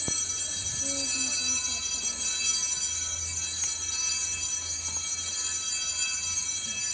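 Bells ringing in a dense, continuous peal of many overlapping high tones, rung as the monstrance is raised in blessing.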